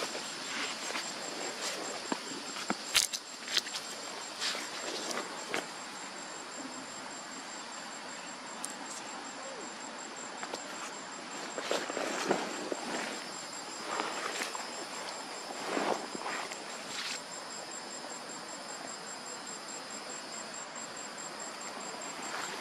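Insects trilling: a steady, high-pitched trill of rapid even pulses. Scattered short clicks and rustles come over it, the sharpest about three seconds in and a cluster between about twelve and seventeen seconds.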